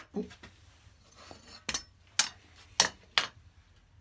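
A handful of sharp clacks as a metal combination square is picked up, handled and set down on the birch plywood, four of them coming about half a second apart in the second half.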